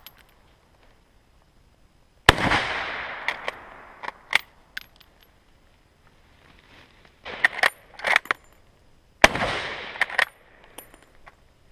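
Two shots from a K98k Mauser bolt-action rifle firing 8mm Mauser, about seven seconds apart, each with a long echoing tail. Between the shots and after them come sharp metallic clicks and clacks as the bolt is worked to eject the spent case and chamber the next round.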